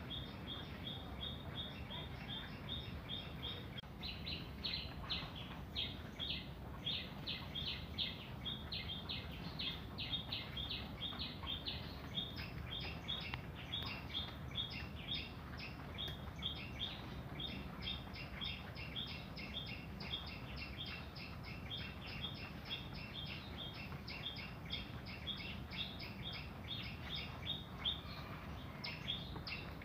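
Rapid, regular high-pitched chirping, several chirps a second without a break, over a steady low hum.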